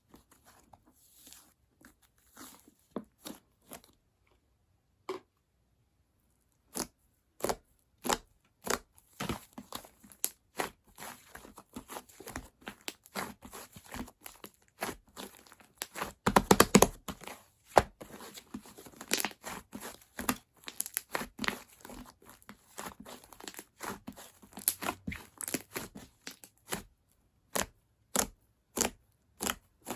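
A puffed-up, whipped-cream-like foam being squeezed and pulled by hand: irregular sharp crackles and pops with a tearing, crinkling quality. After a quiet stretch a few seconds in they grow denser, with the loudest cluster about halfway through.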